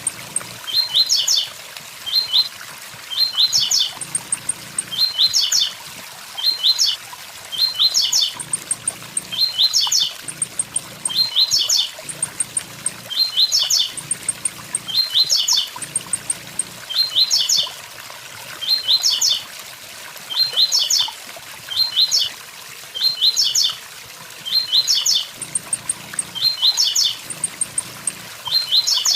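Blue-black grassquit (tiziu) singing its short, quick 'tui-tui-zel-zel' phrase over and over, a phrase every second or two, with a steady waterfall hiss behind it.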